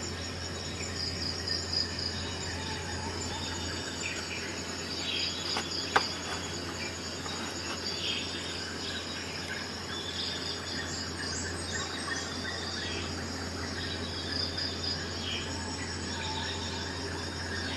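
Steady high, pulsing chirping of insects, with scattered shorter chirps, over a low steady hum. A single sharp click about six seconds in is the loudest sound.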